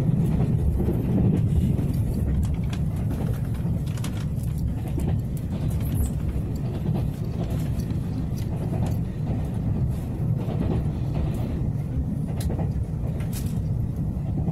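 Steady low rumble of a Taiwan Railways Tze-Chiang express train running along the line, heard from inside a passenger car. A few faint clicks and rattles come through now and then.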